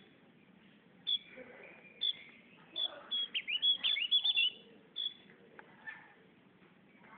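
Javan grey-throated white-eye (opior jawa) singing: short high chirps and quick down-slurred whistles, with a rapid run of notes in the middle, then faint near the end.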